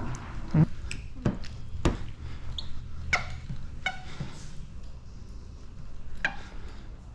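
A squeegee and fingertips working wet paint protection film on a car panel: scattered light taps and handling clicks, with a few short squeaks about three, four and six seconds in as the film is pressed and rubbed.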